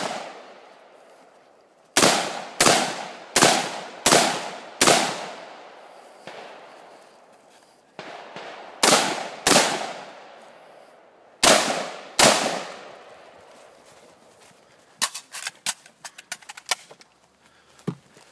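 AR-style rifle firing at steady pace: a string of five sharp shots about two-thirds of a second apart, then two quick pairs, each crack followed by a short echoing tail. Near the end comes a quick patter of light clicks and knocks.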